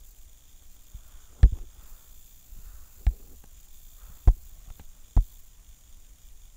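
Four short, dull thumps a second or so apart, fingertip taps on a tablet touchscreen, over a faint steady hum.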